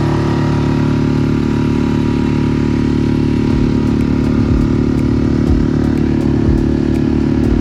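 An engine running steadily at an even speed, with light knocks from about halfway through.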